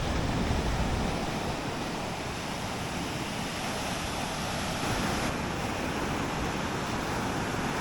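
Surf washing onto the beach, a steady rush of breaking waves, with wind rumbling on the microphone.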